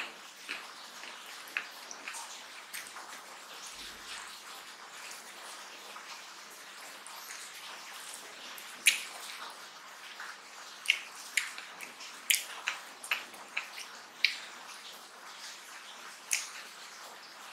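Close-miked wet eating sounds: fingers squishing and mixing rice and curry on a steel plate, with sharp mouth smacks and clicks from chewing at irregular intervals, coming thicker in the second half.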